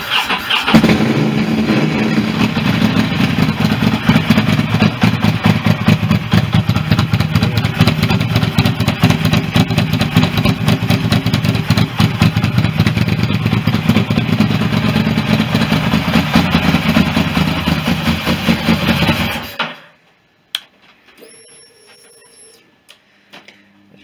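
Ducati 750SS's air-cooled L-twin engine starting up at once and running steadily for about twenty seconds, then cutting off suddenly.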